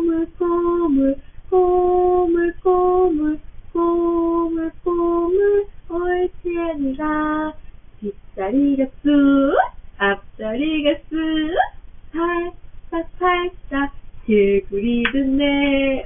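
A woman singing a Korean children's song to a toddler in held, steady notes, heard through a baby-monitor camera's microphone. Around the middle, quick high rising vocal glides from the toddler join in, with more singing after.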